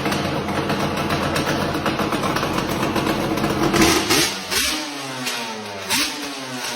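2006 Yamaha Banshee's twin-cylinder two-stroke engine on a test run after a carb clean and clutch adjustment. It revs up to a peak about four seconds in, then drops back and runs quieter.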